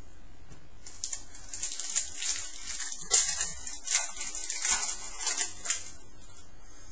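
Crinkling and tearing of a trading-card pack's foil wrapper as the pack is opened, a run of crackly rustling with many sharp little clicks that starts about a second in and stops near six seconds.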